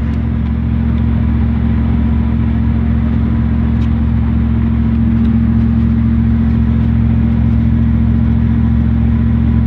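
Old pickup truck driving, heard from inside the cab: a steady low engine and road drone that gets slightly louder about five seconds in.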